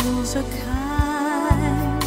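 Background music: a song with a singer holding long, wavering notes over steady low bass notes.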